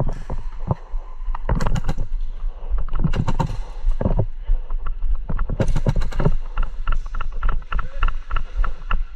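Airsoft player running hard: fast, heavy footfalls and the rattle of gear, close to the microphone. Two short runs of quick, sharp snaps come about one and a half seconds in and again near six seconds.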